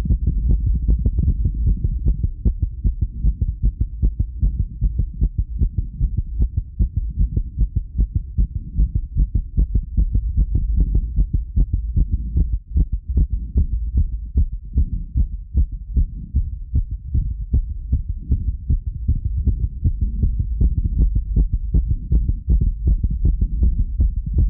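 A person's heartbeat at rest: a steady, regular run of deep beats over a constant low rumble. The owner feels the rate is fast for someone at rest.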